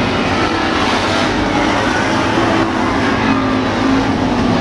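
A pack of street stock race cars running on a dirt oval, their engines blending into one steady loud drone whose pitches rise and fall as the cars accelerate past.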